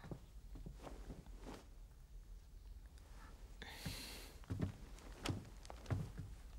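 Faint footsteps, a few soft knocks a little under a second apart in the second half, with a brief rustle of clothing just before four seconds in.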